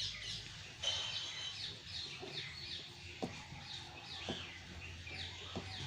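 Small birds chirping over and over in quick, downward-sweeping notes, with a few sharp clicks in the second half.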